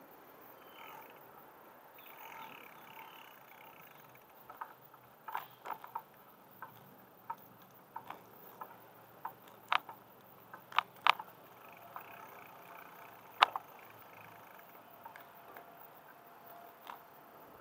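Bicycle and its mounted camera rattling over a paved path: scattered sharp clicks and knocks, irregular and loudest about ten and thirteen seconds in, over a faint steady background.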